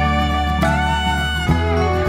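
Instrumental background music: a waltz, with held melody notes over a steady bass.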